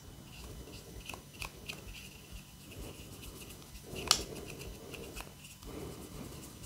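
Soft paintbrush bristles sweeping sanding dust off the puttied, sanded surface of a plastic model aircraft. The brushing is faint and scratchy, with small clicks and one sharper click about four seconds in.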